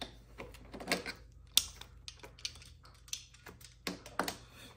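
Irregular small metal clicks and taps as the throttle cable fitting is worked loose from the Yamaha Raptor 700R's stock thumb-throttle housing, with one sharper click about a second and a half in.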